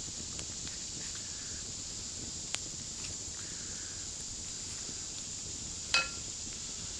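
Faint crackle of a wood campfire over a steady high hiss, and about six seconds in a single short metallic clink that rings briefly as a cast iron skillet is handled.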